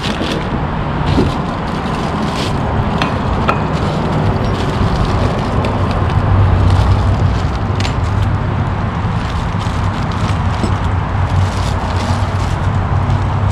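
Steady traffic noise from a nearby freeway, with scattered clicks and rustles of parts being handled and unpacked.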